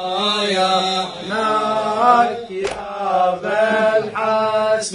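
Male radood chanting a Shia lamentation refrain (latmiyya) in a long, melismatic, reverberant voice, with a sharp beat near the middle and another near the end.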